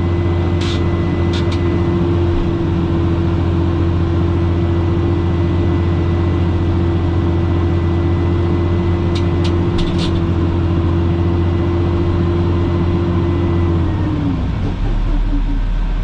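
Dump truck engine running at raised revs to drive the hydraulic hoist as the dump bed rises, a steady drone with a held whine that drops in pitch about 14 seconds in. A few light clicks sound near the start and again about nine to ten seconds in.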